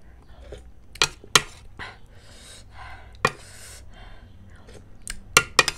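Metal spoon and fork clinking against a stainless steel plate, six sharp taps spread unevenly, two close together near the end, with soft breathy eating sounds between them.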